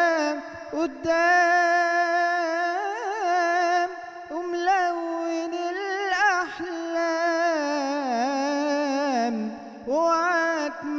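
A man singing a slow Egyptian Arabic song solo into a microphone, holding long notes that waver and bend in pitch, with a short pause about four seconds in and another near the end.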